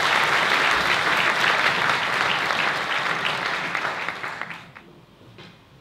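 Audience applauding with many hands clapping, the applause dying away about four to five seconds in.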